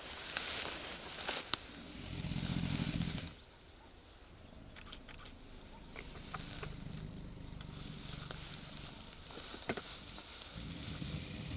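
Outdoor grassland sound: a bird repeats a short call of three or four quick, high, falling notes several times. A brief hiss comes in the first second or so, and a low rumble comes and goes in stretches.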